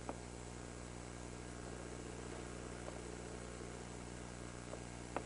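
Low, steady hum with hiss, with a faint click near the start and another near the end.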